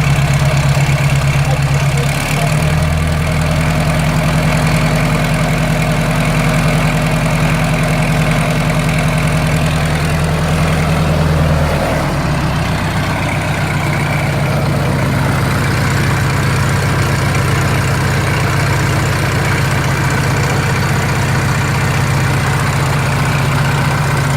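Vehicle exhaust with the engine idling steadily, its low note shifting slightly about two seconds in and again about twelve seconds in.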